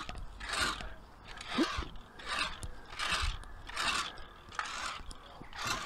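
Metal spring-tine lawn rake scratching through a lawn, tearing out dead thatch in repeated scraping strokes, about one and a half a second.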